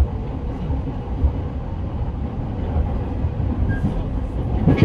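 Interior running noise of a JR East E217-series electric train's motor car at speed: a steady low rumble of wheels on rail with a faint steady tone and occasional knocks, and a louder clatter near the end.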